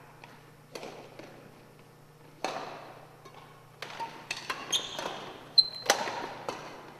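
Badminton rally in a large gym: sharp racket strikes on the shuttlecock, each with a ringing echo, a second or more apart at first and coming faster in the second half. Trainers squeak on the hardwood floor, with a loud short squeal about two-thirds of the way in.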